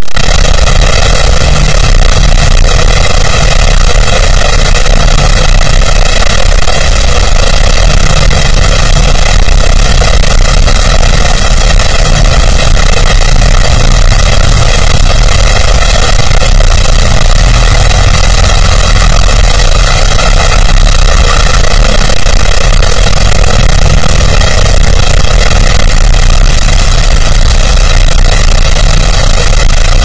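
Very loud, heavily distorted and clipped steady noise with several constant tones running through it.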